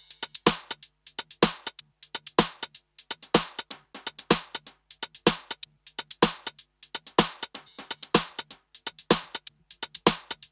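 Background electronic music with a steady, sharp percussive beat: a strong low hit about once a second with lighter, crisp hits between.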